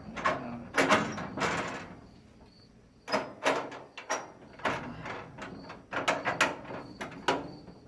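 Screwdriver turning out a Phillips head screw from a gun cabinet's lock: a series of short squeaky scrapes, one per turn, that pause about two seconds in and then resume at roughly two a second.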